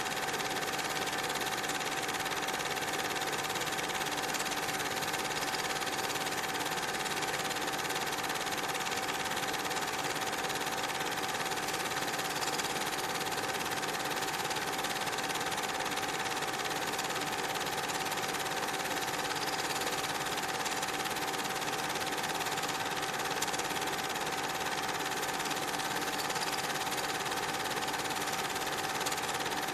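Cine film projector running: a steady mechanical whirr and rapid clatter with a constant hum-like tone, unchanging throughout.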